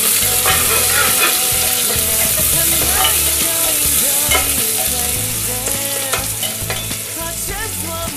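Chopped onions sizzling as they fry in hot oil in an aluminium pressure cooker, stirred with a spoon that scrapes against the pot.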